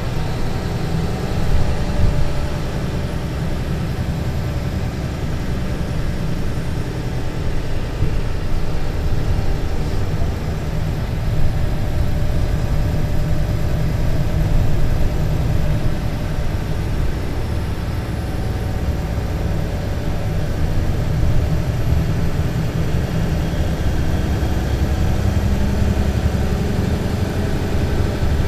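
Mercedes-Benz Citaro C2 LE city bus's Euro 6 diesel engine running steadily, with the low hum growing stronger near the end.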